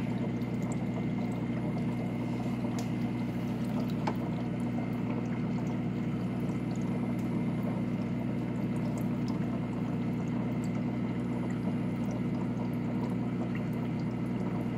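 Aquarium filtration running: continuous trickling, pouring water over a steady electrical hum.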